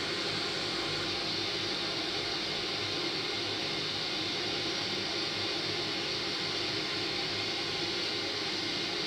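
Steady, unbroken rush of the Marmore Falls cascade: a dense, even wash of falling water with no change in level.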